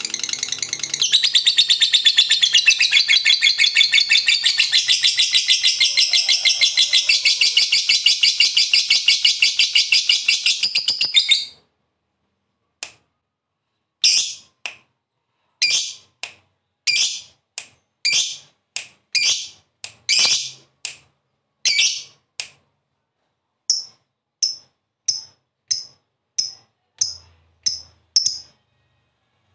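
Lovebird singing a long 'ngekek': a fast, unbroken rattling chatter that runs for about eleven seconds and stops abruptly. A string of short separate chirps follows, about two a second. This long chatter is the 'ngekek panjang' prized in fighter lovebirds.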